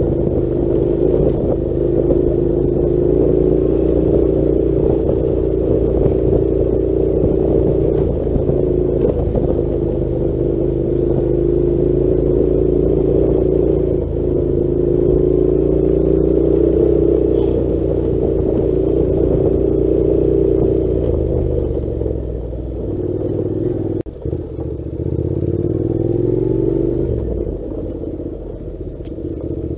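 Honda NC700 motorcycle's parallel-twin engine running steadily under load. About three-quarters of the way through, the note falls away with a brief sharp dip, then rises again near the end.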